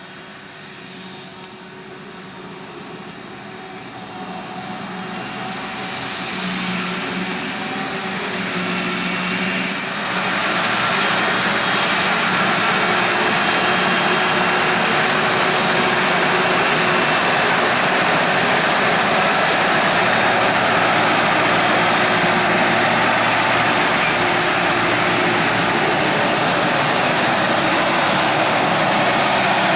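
Heavy farm machinery working a maize harvest: a diesel engine hum that grows louder over the first ten seconds as it comes closer, then stays loud and steady with a dense rushing noise over it until it cuts off at the end.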